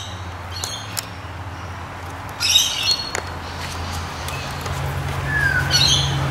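Birds calling in two short bursts of high, chirpy squawks, with a brief falling whistle between them. Underneath runs a low steady hum that rises in pitch and grows louder near the end.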